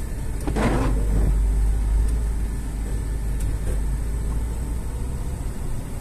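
Car driving slowly along a snowy forest road, giving a steady low rumble of engine and tyres.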